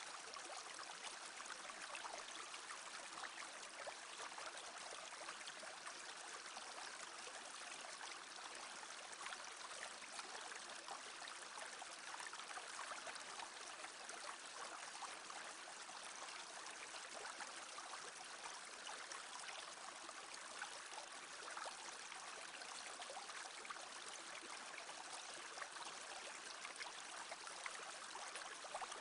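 Small brook murmuring steadily, a constant, even babble of flowing water.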